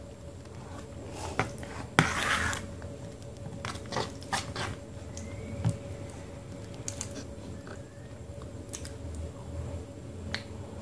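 Close-up mouth sounds of eating a thick wet paste of multani mitti (fuller's earth clay): wet smacking and squishing, with sharp clicks of a steel spoon against a steel bowl. The loudest is a clink about two seconds in, followed by a brief scraping rush. A faint steady hum sits underneath.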